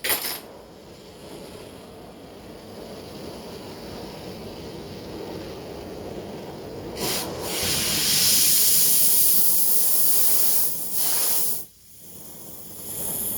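Gas torch hissing as its valves are opened, the rush of gas growing louder, then much louder and steady from about seven seconds in; it cuts out briefly near the end and comes back.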